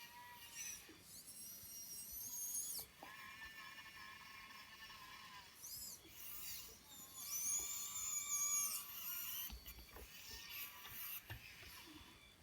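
Small electric drive motors of a remote-controlled model excavator whining as its functions are worked, starting and stopping, with the pitch gliding up and down. The loudest, highest whines come at about one to three seconds in and again past the middle.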